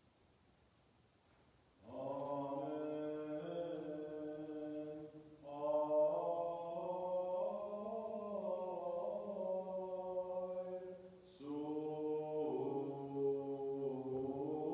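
Armenian church liturgical chant: after a brief hush, long sung phrases with each note held steadily, in three stretches.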